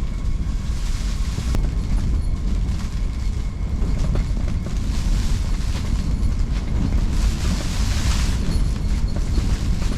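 High wind buffeting the microphone: a continuous low rumble that swells and drops with the gusts.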